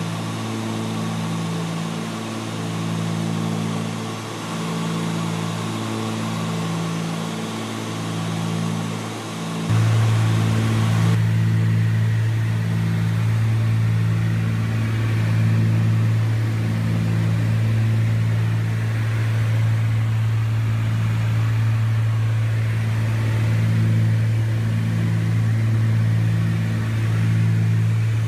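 Steady cabin drone of a Cessna 310's two six-cylinder piston engines and propellers in cruise, with a slow regular throb about every second and a half: the beat of the two propellers turning at slightly different speeds. About ten seconds in, the drone becomes louder and deeper.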